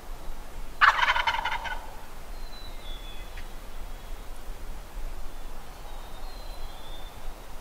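Wild turkey gobbler gobbling once: a single rapid, rattling gobble about a second long, starting about a second in.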